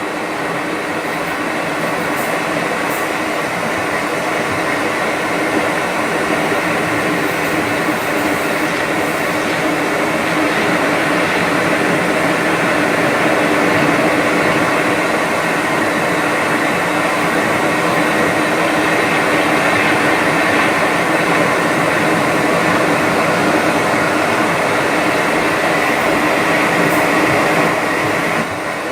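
Hatch sound machine playing a steady rushing hum, a dense even noise with faint steady tones through it. It swells slightly, then dips a little just before the end.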